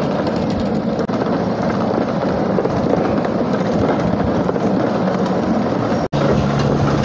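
Ride-on miniature railway train running along its track: a steady, loud rolling rumble. Near the end it cuts out for an instant and comes back with a steady low hum.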